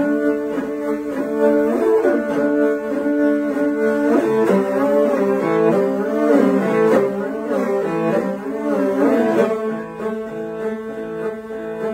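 Two morin khuur (Mongolian horsehead fiddles) bowed together, playing a melody of quick, shifting notes that settles into long held notes about nine and a half seconds in.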